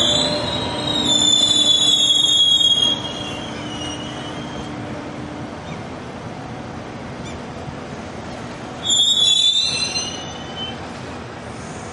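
X2000 passenger train's brakes squealing high-pitched as it slows to a stop, the squeal dying away after about three seconds and a second, shorter squeal coming about nine seconds in, each dipping in pitch as it ends. A low drive hum falls in pitch and fades beneath the first squeal.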